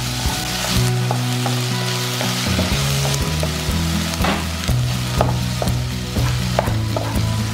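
Diced onion and meat sizzling in a nonstick frying pan as they are stirred with wooden utensils. Scattered clicks of wood against the pan sound through the steady sizzle.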